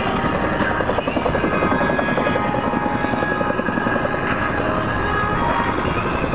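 Boeing CH-47JA Chinook tandem-rotor helicopter flying past. Its two rotors make a fast, even beat, and its twin turboshaft engines give a steady whine.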